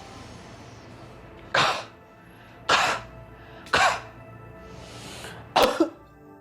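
A person coughing forcefully four times, about a second apart, the last cough doubled. These are deliberate effective-cough exercise coughs, done to bring up phlegm. Soft background music plays underneath.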